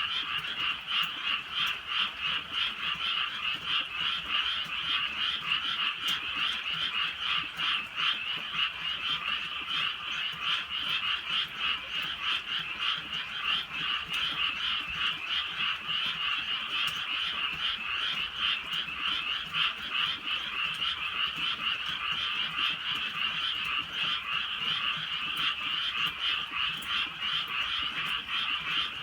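A dense chorus of many frogs croaking together without a break. The calls overlap in a rapid, steady chatter.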